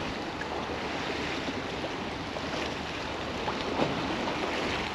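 Steady wash of estuary waves at high tide against the bank, with wind.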